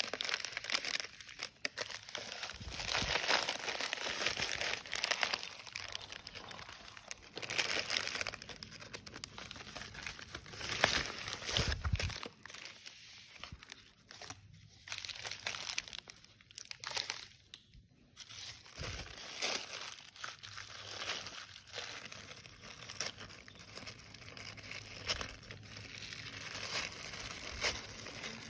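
Packaging crinkling and rustling in irregular handfuls as it is handled and pulled open, with the odd tearing sound.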